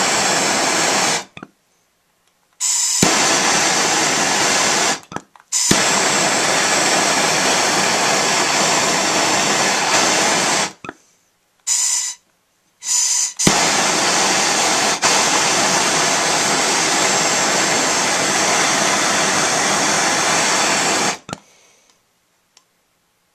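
Handheld gas torch flame hissing steadily as it heats brass for silver soldering. It is shut off and relit several times, with two short puffs in a gap about halfway through, and is shut off for good near the end.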